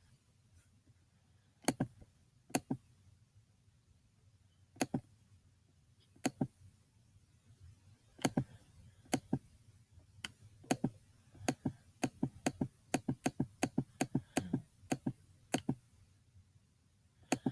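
A series of sharp knocks or taps close to the microphone. They come one at a time for the first few seconds, then speed up into a quick run of about a dozen taps, roughly two or three a second, before stopping near the end.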